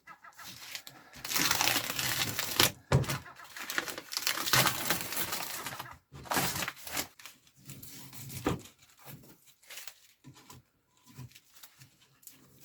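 Paper template and masking tape being peeled off scroll-sawn MDF shapes: irregular crinkling and tearing, loudest in the first half and quieter rustles after.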